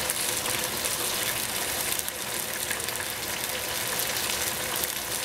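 Bok choy cooking in a stainless steel pot on the stove, sizzling and steaming with a steady hiss and faint crackles.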